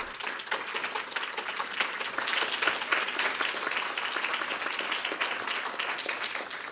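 Audience applauding after a speech, a dense steady clapping that starts at once and tails off near the end.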